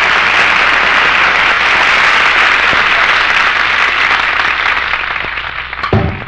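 Studio audience applauding, dying away near the end as the band's brass comes back in.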